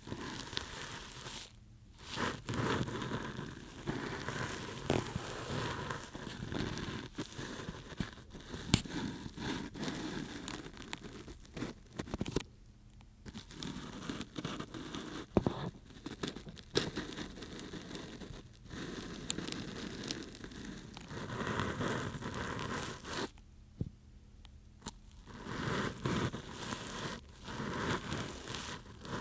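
Ear-cleaning ASMR sounds: an ear pick scraping and rubbing inside the ear of an ear-shaped microphone, close and crackly, in long strokes broken by brief pauses.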